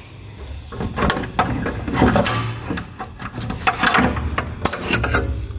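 Key working in a steel padlock on a door's bolt latch: a run of metallic clicks and rattles as the key is turned and the lock is worked open.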